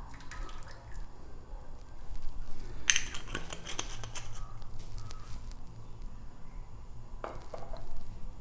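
Kitchen handling sounds: sharp clicks and light clatter of cookware, with a dense run of clicks about three seconds in and another short group near the end, over a faint low hum.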